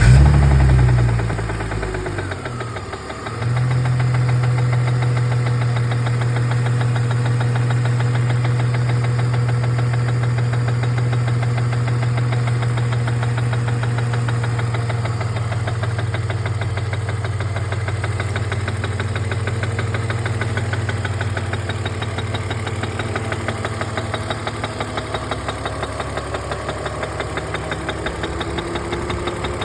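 BMW E46 330's engine just after starting, its revs flaring high, then dipping and settling about three seconds in to a steady idle. A fast, even tapping runs through the idle: the knock, tap or rattle the owner is chasing.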